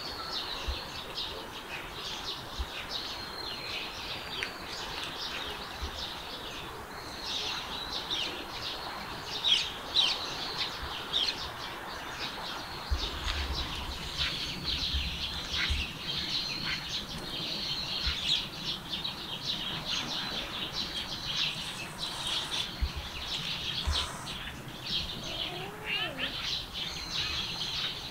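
Wild birds chirping and calling, many short high chirps and trills one after another, over steady outdoor background noise.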